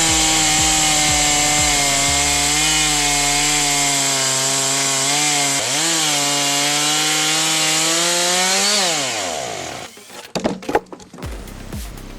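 Chainsaw running at full throttle, cutting steadily lengthwise through a log in a homemade wooden-frame chainsaw mill. The engine note sags briefly about six seconds in. Near nine seconds it comes off the throttle and winds down, followed by a few knocks.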